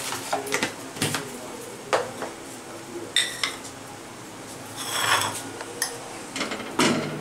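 Crockery and utensils clinking and knocking: a handful of sharp knocks, two of them, about three and five seconds in, ringing briefly like a plate or metal utensil struck.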